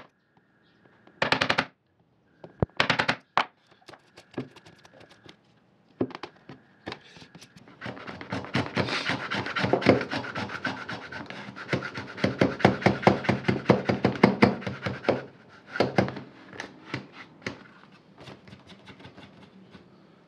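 Hand tools cutting beech: a chisel pares the wood in two short scraping bursts near the start, then a hand router plane cuts a shallow recess in a long run of rapid scraping strokes that is loudest between about 8 and 15 seconds in.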